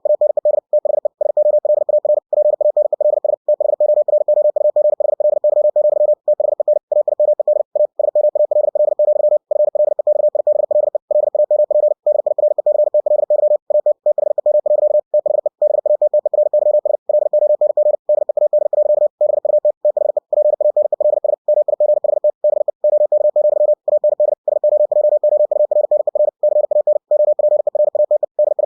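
Computer-generated Morse code (CW): a single-pitch tone keyed into very fast dots and dashes at 60 words per minute, broken by short pauses between words.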